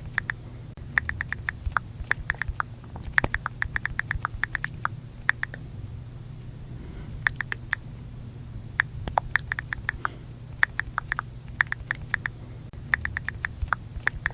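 iPhone keyboard click sounds as someone types on the touchscreen: quick runs of sharp taps, several a second, broken by pauses of about a second, over a low steady hum.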